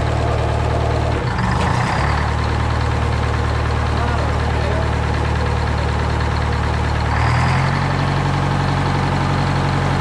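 GM 4-71 "Screaming Jimmy" two-stroke supercharged diesel engine running just after being started. About a second in its speed briefly dips and recovers. About seven seconds in it steps up to a higher steady speed.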